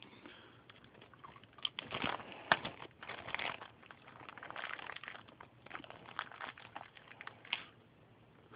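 A plastic parts bag crinkling in an irregular series as it is opened and handled, with the new agitator cogs inside.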